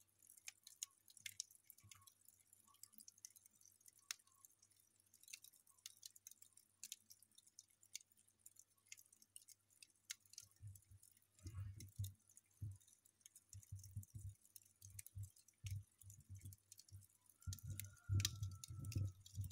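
Wood-fire embers crackling faintly under a smouldering ankle boot, in sparse sharp pops and clicks. About halfway through, low rumbling thumps come in and grow stronger near the end, with a brief faint whistle.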